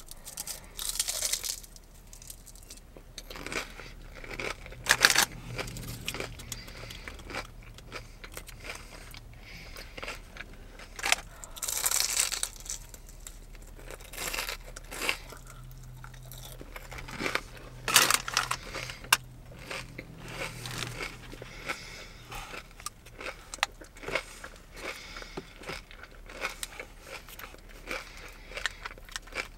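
Close-up biting and chewing of crunchy fried onion rings dipped in ranch: irregular crackly crunches, with a few louder ones spread through.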